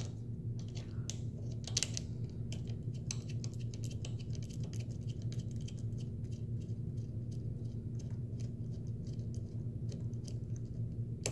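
Many small irregular clicks and scratches of a bolt being threaded finger-tight by hand into a plastic fender eliminator bracket, over a steady low hum.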